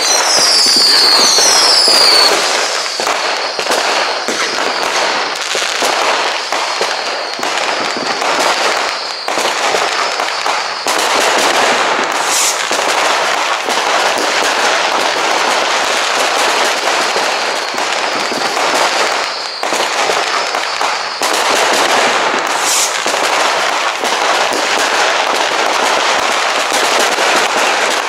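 Massed New Year's Eve fireworks going off all around: an unbroken crackle of firecrackers and bangs. A few whistles glide down in pitch in the first two seconds.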